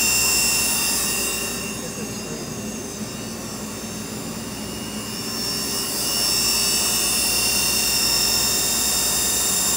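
Star SR-32J CNC Swiss-type lathe's main spindle running steadily at about 6,000 rpm, a steady high-pitched whine, during a step-by-step spindle speed run-up. The whine dips in level for a few seconds midway, then comes back up.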